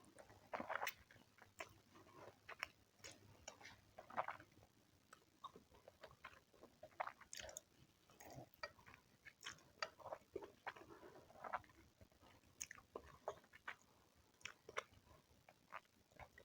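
Quiet, close-miked eating: a person chewing and biting food, with irregular short wet smacks and clicks, often several a second.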